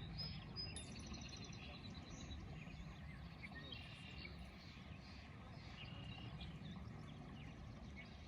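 Small birds chirping and trilling, with short repeated notes about a second in and again around four seconds in, over a faint low steady rumble.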